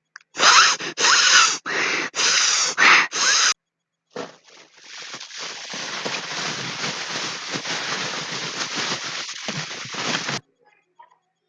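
A child making strange mouth and voice noises: a run of about five short, loud, squealing bursts, then a long steady rasping hiss for about six seconds that cuts off suddenly.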